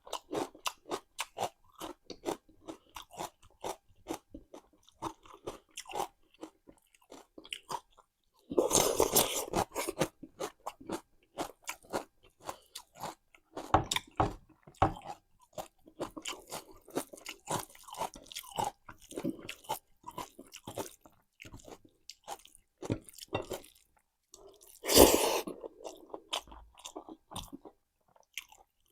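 Close-up eating sounds: steady chewing with crisp crunches of raw salad vegetables, and two louder spells of crunching, about nine seconds in and again near the end.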